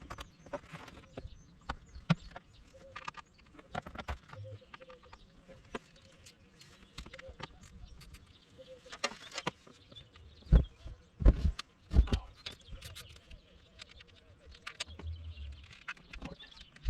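Clicks and knocks of hands and tools working in a boat's battery compartment while the main battery is disconnected and lifted out, with three heavy thumps close together about ten to twelve seconds in.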